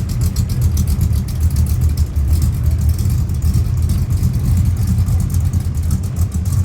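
Car engines running at low speed, a steady low drone without pause.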